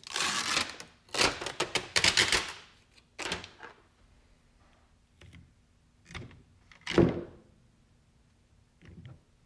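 Adhesive tape being peeled off the casings of sealed lead-acid UPS batteries, three rough ripping bursts in the first few seconds. Then light knocks and one louder thunk about seven seconds in as a battery is pulled away and handled.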